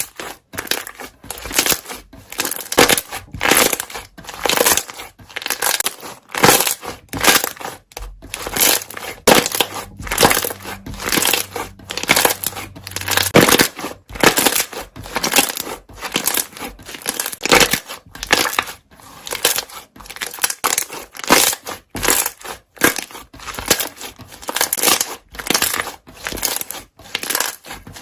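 Slime being squeezed and pressed by hand, its trapped air bubbles popping in dense crackly bursts, several a second, over and over.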